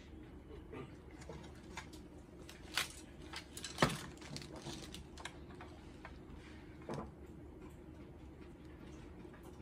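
Plastic clicks and knocks from a Zebra ZC100/300 card printer's feeder assembly as it is handled and turned over, with a few sharp taps, the loudest about four seconds in, over a steady low hum.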